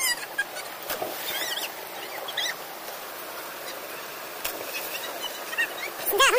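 Stream water rushing over rocks, with children's high shouts and squeals now and then; the loudest squeals come near the end.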